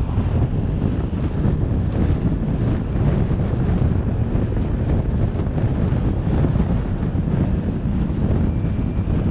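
Steady wind buffeting the microphone of a vehicle moving at road speed, with a low rumble of road and engine noise underneath.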